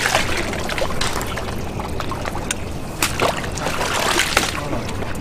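Water splashing as a fish thrashes at the surface of the pond, over a steady outdoor hiss.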